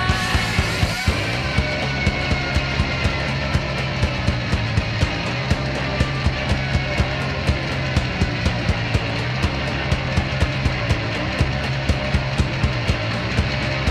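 Punk rock band playing, with a steady driving beat of about three strokes a second.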